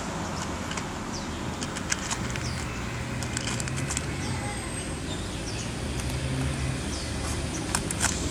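Steady road traffic noise with an engine hum from about two to seven seconds in, over which a cat crunches dry kibble in scattered short clicks.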